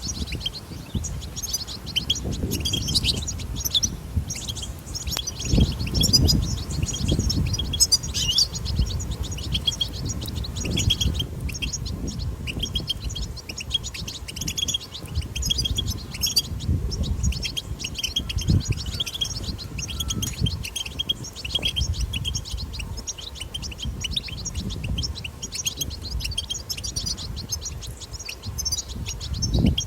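European goldfinch twittering: a fast, unbroken run of high chirps and trills, with a low uneven rumble underneath.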